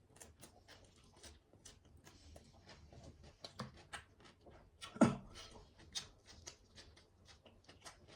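Close-up eating sounds: irregular small wet clicks and smacks of a person chewing, several a second, with one louder smack about five seconds in.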